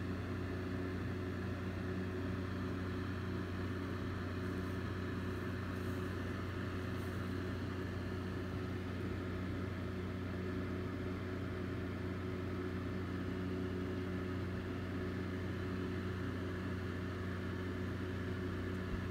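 Electric fan running with a steady low hum.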